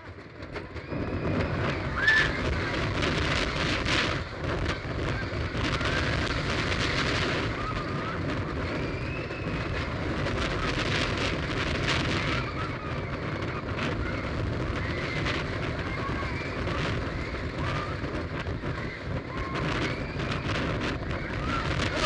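Wooden roller coaster train rattling and rumbling fast along its timber track, with heavy wind buffeting the microphone and riders screaming again and again. Quieter for the first second as the train crests a hill, then loud as it drops.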